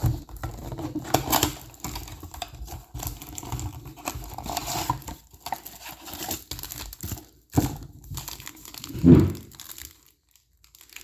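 Foil trading-card pack wrappers from a blaster box crinkling and tearing as they are handled and ripped open, with a louder thump about nine seconds in.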